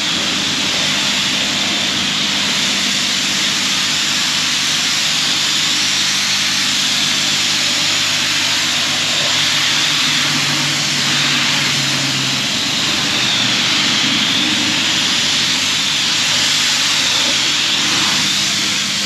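High-pressure car wash wand spraying a water jet onto a pickup truck's body, rinsing off soap foam: a loud, steady hiss, with a faint low steady hum underneath.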